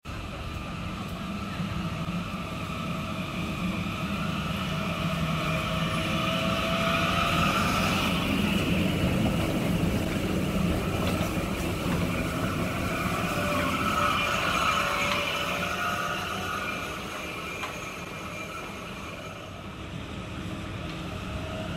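Translohr rubber-tyred tram passing close by, with steady electric motor whine over running noise. The sound builds to its loudest as the tram goes past, about ten seconds in, then eases off near the end.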